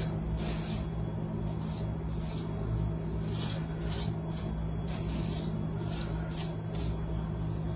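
Irregular short rustling and rubbing scrapes, one or two a second, over a steady low hum.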